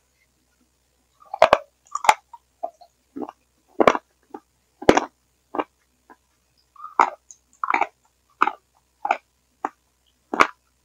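Close-miked eating sounds: chewing and mouth smacks from spooning a soft dessert, in short irregular bursts that start about a second and a half in. The headphone microphone garbles them into a gurgling that the uploader blames on the headphones failing.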